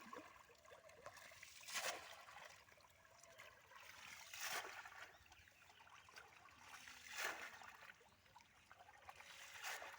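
Faint water trickling and lapping, swelling briefly four times about every two and a half seconds.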